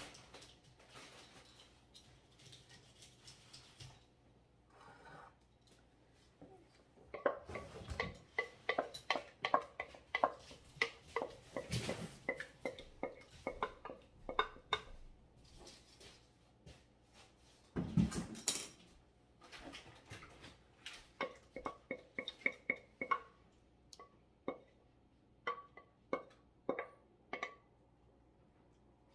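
A metal spoon scraping and clinking against a dish in irregular taps, with two heavier knocks, as pudding is spooned out and spread.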